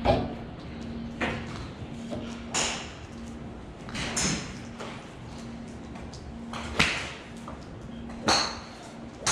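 Golf clubs striking balls in neighbouring bays of a driving range: about six sharp clicks, spaced irregularly a second or two apart, some with a short ringing tail. A faint on-off hum runs underneath.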